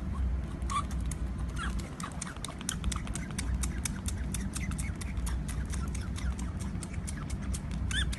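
Baby otter suckling from a milk bottle: rapid smacking clicks from its mouth on the teat, with a few brief high squeaks, one rising squeak near the end.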